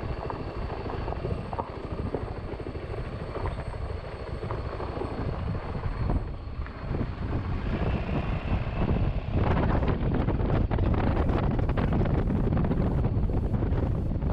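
Wind buffeting the microphone over the engine and road noise of a motorbike being ridden, growing louder about two-thirds of the way in.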